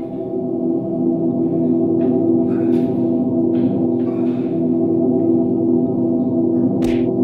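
Film score: a sustained, ringing low drone chord that swells over the first couple of seconds and then holds steady. A few faint short noises sound over it.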